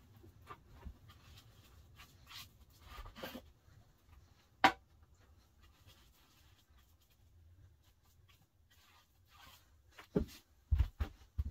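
Faint scratchy strokes of a paintbrush laying polyurethane onto pine window trim. A single sharp click comes about halfway through, and a few low knocks near the end.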